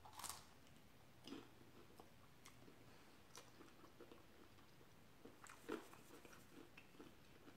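Faint close-up chewing of a bite of fried samosa, with a handful of soft mouth clicks and small crunches.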